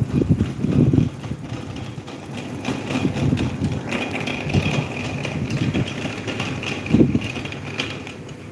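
Electric table fan running, its airflow buffeting the microphone in uneven low gusts. A thin higher hiss joins about four seconds in.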